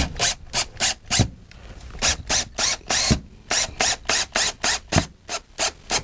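Cordless drill run in short repeated bursts, about three to four a second, with a brief pause about a second in.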